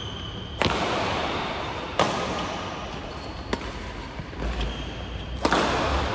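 Badminton rackets striking a shuttlecock four times, about a second and a half apart, each sharp hit echoing in a large hall. A short squeak comes near the end, from a shoe on the court floor.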